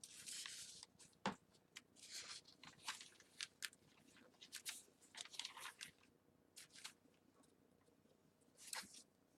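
Paper pages and tags of a handmade junk journal rustling and crinkling as they are handled and turned, in short faint bursts with a few sharp clicks.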